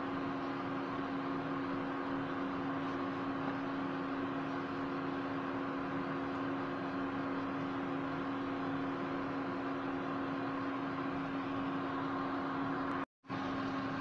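Induction cooktop running under a steel steamer pot: a steady fan whir with a constant electrical hum. The sound cuts out for a split second near the end.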